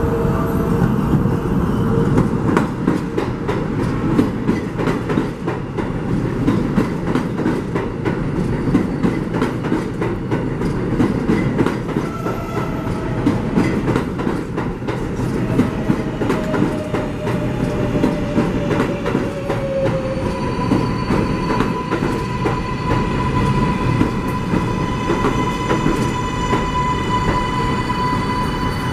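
A New York 7 subway train running on elevated track, with a steady rumble and a constant clatter of wheel clicks over the rail joints. About two-thirds of the way in, a steady high whine with overtones joins and holds, then drops away at the very end.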